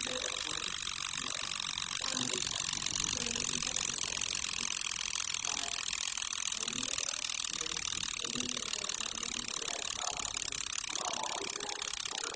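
Wind-up alarm clock's alarm mechanism running with its back cover off: the unwinding spring drives the gear train and the hammer vibrates rapidly, making a steady mechanical rattle.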